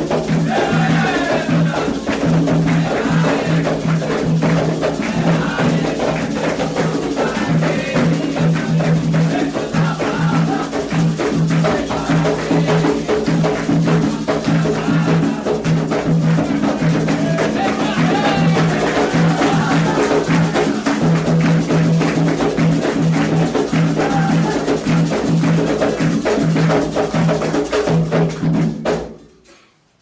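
Candomblé atabaque hand drums with a clicking percussion pattern, playing the Angola-nation rhythm for Iansã's dance, with voices singing over them. The music cuts off abruptly about a second before the end.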